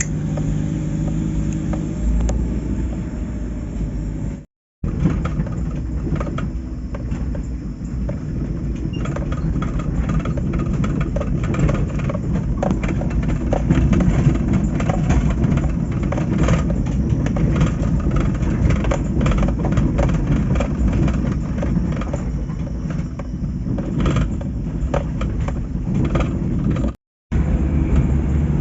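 Vehicle driving along a road: a steady low engine and road rumble with many small rattling knocks. The sound cuts out completely twice for a moment.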